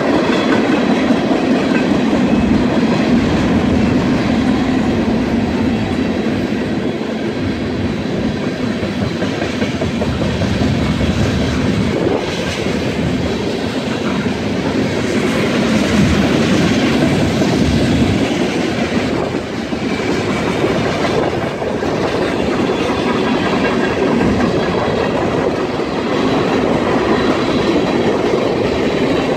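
Cars of a CN manifest freight train, tank cars and covered hoppers, rolling through a road crossing: a steady rumble of wheels on rail, with irregular clacks as the wheels pass over the crossing and rail joints.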